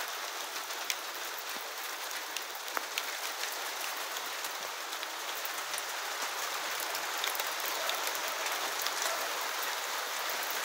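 Light rain falling on surfaces: a steady hiss with scattered drops ticking.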